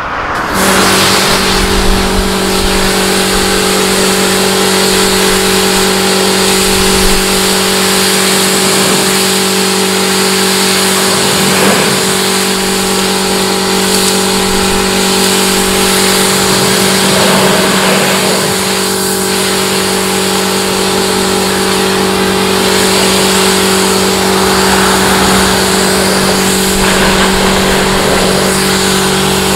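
A motor starts suddenly about half a second in and then runs at one steady pitch, a constant hum under a loud hiss.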